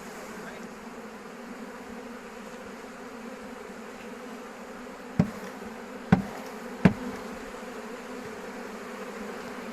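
A swarm of honeybees buzzing in a steady, dense hum. About five to seven seconds in there are three sharp knocks, a little under a second apart.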